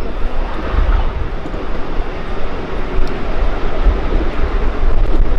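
Ride-on miniature train running along its track, heard from aboard: a steady, continuous rumble of the train in motion.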